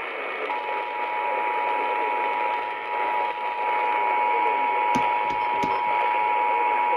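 Emergency Alert System attention signal over a radio: two close steady tones sounded together, starting about half a second in over a hiss of radio static, with a few faint clicks near the end. It is the alarm that heads a coming alert message, here a Child Abduction Emergency.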